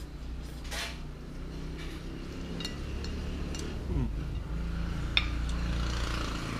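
Someone eating noodles with chopsticks: a short slurp about a second in, then scattered light clicks of the chopsticks against the plate, over a low steady hum.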